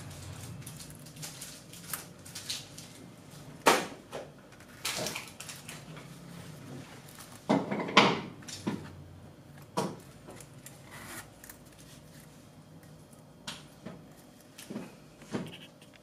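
Handling noises from leatherworking: scattered sharp clicks and knocks of objects being picked up and set down, the loudest about four and eight seconds in.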